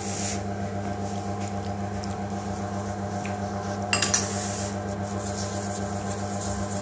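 Steady electrical and mechanical hum of kitchen equipment, with faint rustling and a brief clatter of crockery about four seconds in.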